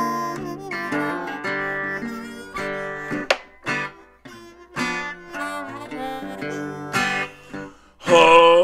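Slide blues guitar: a black hollow-body guitar picked with a metal slide on the fretting hand, in an instrumental break. Single notes and chords ring and glide between pitches, with a louder held sound starting near the end.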